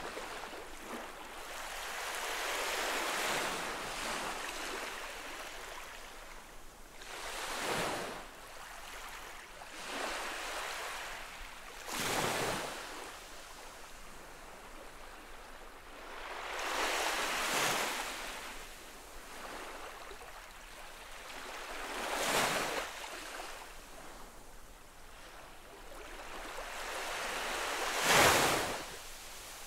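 Small ocean waves gently lapping at a sandy shore: a soft rush of water every few seconds, each swelling and fading away, the loudest near the end.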